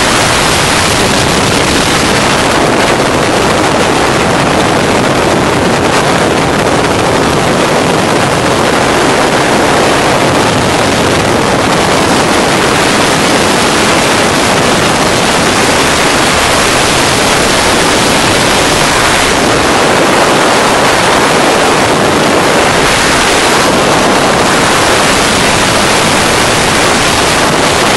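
Loud steady rush of airflow over the microphone during flight in an open motorized hang glider, blended with the drone of its engine.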